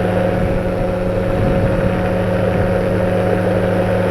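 Powered parachute's engine and propeller running steadily in cruising flight, an unchanging drone with several fixed tones.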